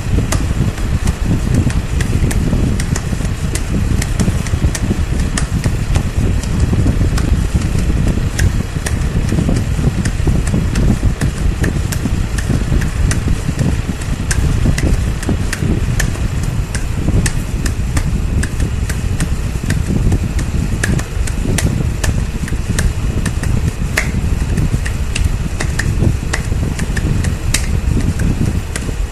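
Steady low rumbling noise with frequent short crackling clicks, resembling a distant engine or the low drone described as the 'hum'.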